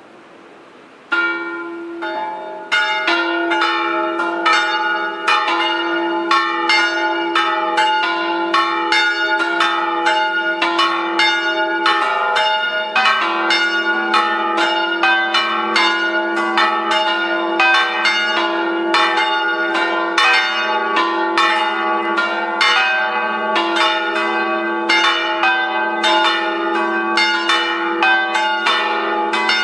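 Several church bells ringing together: the first strikes about a second in, more join a second or two later, and they keep ringing in an overlapping peal of about two or three strokes a second.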